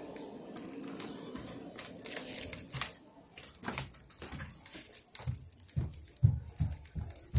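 A screen door's handle and latch clicking and rattling as the door is opened, then footsteps going up carpeted stairs, low thuds about three a second, with handling noise from the phone.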